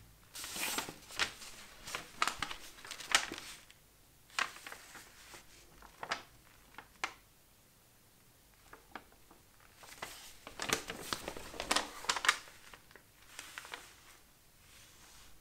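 Paper instruction leaflet being unfolded and handled by gloved hands: bouts of crinkling and rustling, with a quieter lull in the middle before a second, louder bout.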